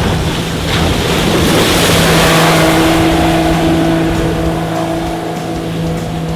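Outboard motor running on a boat, with a rush of water and wind that swells about two seconds in and then eases.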